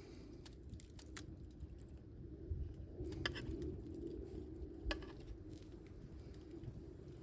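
Wood campfire crackling, with scattered sharp pops and a louder snap about five seconds in, over a steady low rumble of wind.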